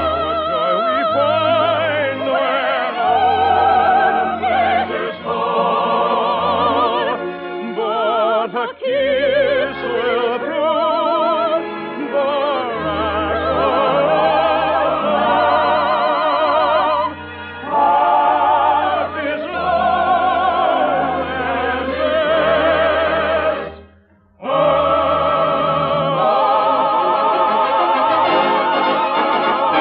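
Operetta finale sung in full voice with vibrato by soloists and choir over an orchestra, on an old radio broadcast recording. The music breaks off briefly about 24 seconds in, then resumes for the closing bars.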